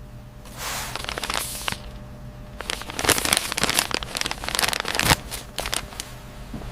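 Irregular crinkling and rustling of packaging being handled, over a steady low hum.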